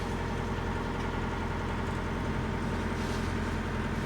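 A sailboat's engine running steadily at constant speed, a continuous low drone.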